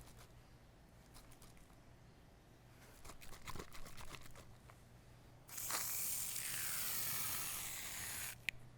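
Sounds of a manual wet shave being prepared: a few faint clicks and rustles, then a steady hiss for about three seconds, ending with a single sharp click.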